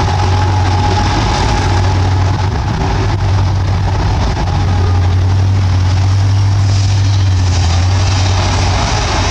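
Bulldozer's diesel engine running steadily under work, with a strong low hum, getting a little louder about two-thirds of the way in.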